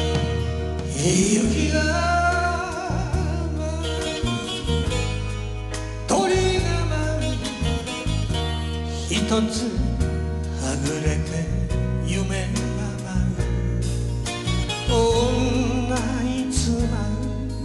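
Enka ballad: a male singer sings slow lines with a wide vibrato-laden voice over instrumental accompaniment with steady low bass notes.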